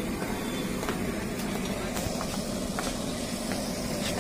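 Steady hum of street traffic, with a few faint light clicks scattered through it.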